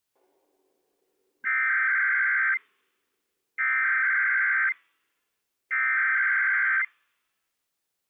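Emergency Alert System SAME header from a NOAA Weather Radio broadcast: three identical bursts of two-tone digital data, each about a second long with about a second of silence between, encoding a Required Weekly Test.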